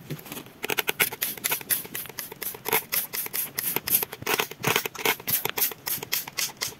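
Hand trigger spray bottle squirting water onto potting soil, pumped rapidly over and over, about four short hissing squirts a second.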